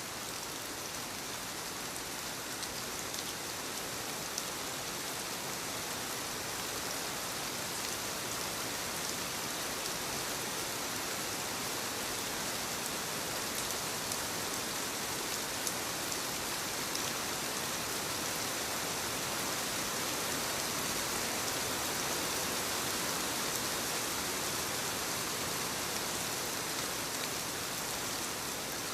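Steady rain falling, a dense even hiss with fine scattered drop patter.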